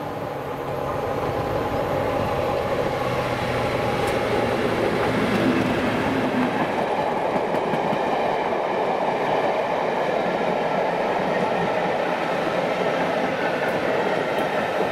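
Class 37 diesel locomotive's English Electric V12 engine running as it hauls a train past, then the steady rumble and clatter of the coaches' and vans' wheels on the track, growing louder about two seconds in and staying dense to the end.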